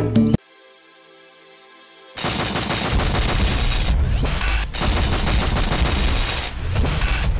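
Intro music for an animated logo: a musical phrase cuts off, a faint held chord lingers for under two seconds, then loud music full of rapid, dense percussive hits comes in about two seconds in.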